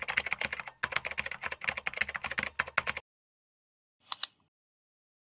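Computer keyboard typing: a quick run of keystrokes for about three seconds, with a short pause near the first second. After a pause, two quick computer-mouse clicks come a little after four seconds.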